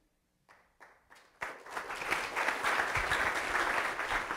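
Audience applauding: a few scattered claps, then full applause breaking out about a second and a half in and holding steady.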